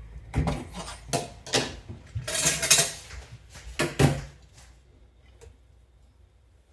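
Dishes and cutlery clinking and knocking as plates and bowls of food are set out and handled, with a short scraping sound in the middle; the clatter dies away after about four seconds.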